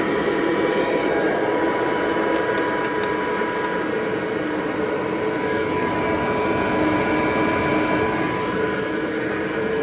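A 1958 Kirby Model 518 upright vacuum cleaner runs steadily while vacuuming carpet: a constant rush of air with a steady whine running through it.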